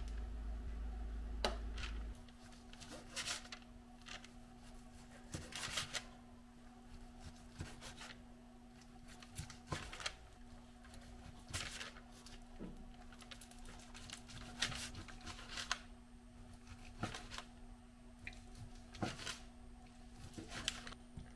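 Chef's knife slicing through pressure-cooked pork belly, the blade knocking on the cutting board every second or two, over a steady low hum. A low rumble stops about two seconds in.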